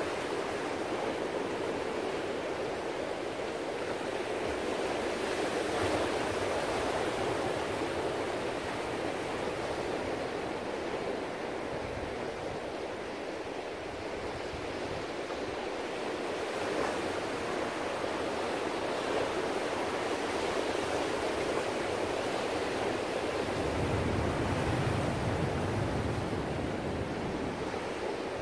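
Ocean waves breaking and washing as surf, a steady rushing noise that swells and eases gently every several seconds.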